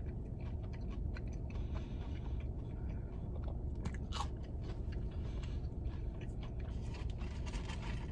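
A person chewing a breaded chicken fry dipped in ranch close to the microphone, with scattered small crunches and clicks over a steady low hum.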